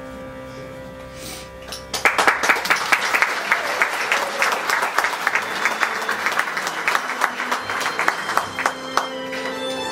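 The song's closing chord is held and fades, then audience applause breaks out about two seconds in and keeps going. Soft instrumental music comes back in under the clapping near the end.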